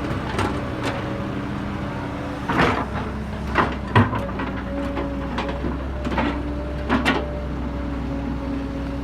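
Kobelco excavator's diesel engine running steadily, with a series of sharp clanks and knocks at irregular intervals, the loudest about four seconds in.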